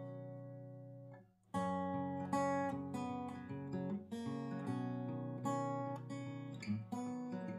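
Background music: an acoustic guitar playing picked notes and strummed chords at a steady pace, with a short break a little over a second in.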